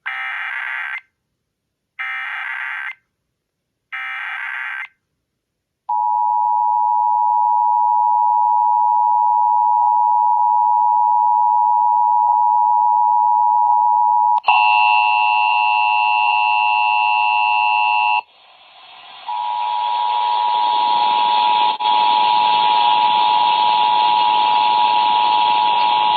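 Emergency Alert System test signal. Three one-second bursts of SAME header data tones, a second apart, are followed by the steady two-tone EAS attention signal. About 14 seconds in, several extra tones, including a higher one, sound over it for a few seconds; from about 18 seconds the attention tone carries on under a loud hiss.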